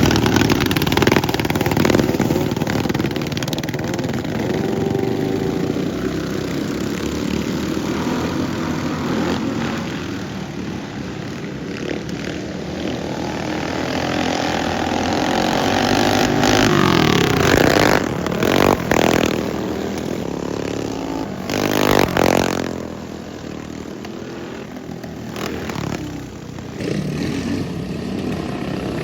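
Racing lawnmower engines running hard, their pitch rising and falling as the mowers accelerate, lift off for corners and pass by, with loud swells near the middle and again about three quarters through.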